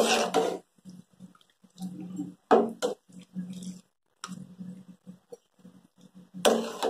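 Metal slotted spoon stirring and scraping against a steel pot of water with yam pieces, in three short bursts: at the start, about two and a half seconds in, and near the end.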